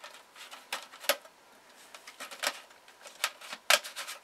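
Plastic clicking and rattling as a portable air conditioner's rear clip is twisted onto the end of its ribbed plastic exhaust hose, with a few sharper clicks, the loudest near the end.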